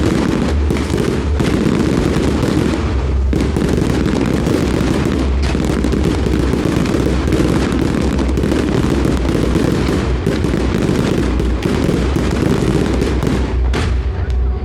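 A fireworks display: a dense, continuous barrage of bangs and crackling, with the booms overlapping so closely there is hardly a gap.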